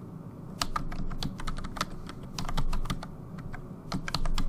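Typing on a computer keyboard: a run of irregular keystrokes, several a second, starting about half a second in.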